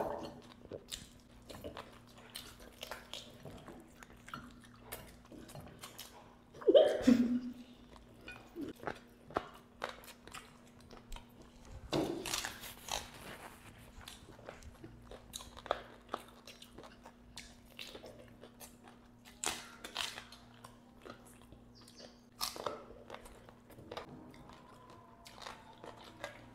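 Close-miked eating sounds of fried chicken leg pieces: chewing, lip smacks and finger licking, with many small wet clicks over a faint steady hum. A brief loud vocal sound stands out about seven seconds in.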